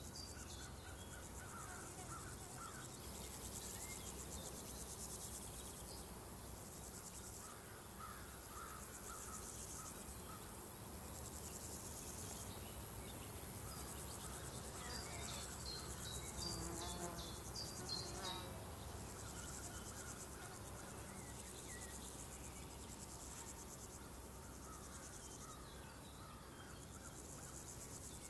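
Rural insect ambience: a steady high-pitched insect buzz starts about three seconds in and stops abruptly around halfway through, over repeated short chirps and scattered calls.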